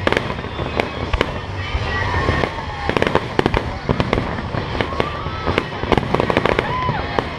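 Aerial fireworks display: a rapid, irregular string of bangs and crackles from shells bursting, over a steady low rumble.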